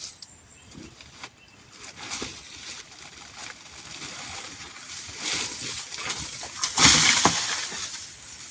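Mango tree coming down: a rush of leaves and branches builds, then crashes loudest about seven seconds in with a couple of low thuds, and fades.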